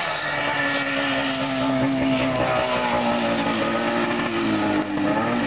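Snowmobile engine running hard, its steady note slowly dropping in pitch.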